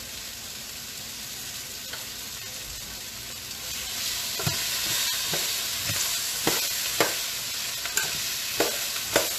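Cabbage and carrots sizzling as they fry in oil in a pan, with a spoon stirred through them. The sizzle grows louder about four seconds in, and from then on the spoon knocks against the pan about once every half second to second.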